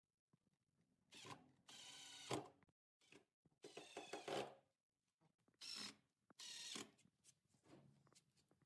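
Makita 12V cordless impact driver driving small screws through a steel hinge into wood, in about five short bursts, the longest just under a second.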